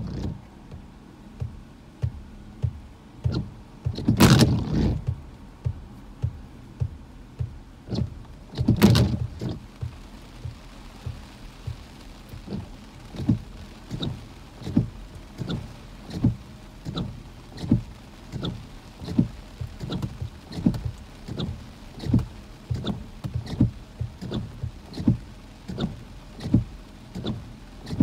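Inside a car in hurricane-force squalls: strong wind gusts buffet the car twice, about four and nine seconds in, over a steady low hum. Through the rest a soft, regular thump repeats about every 0.7 seconds.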